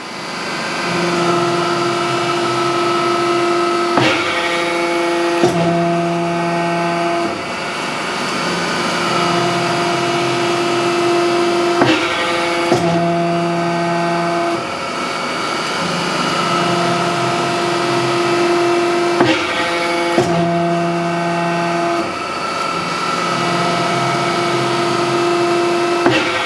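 Anyang STP-S 30-ton hydraulic forging press cycling under its foot pedal: the electric hydraulic pump hums steadily, its note shifting as the ram is driven down and then returns up. Each change is marked by a sharp click of the control valve, in pairs, and the cycle repeats about three times.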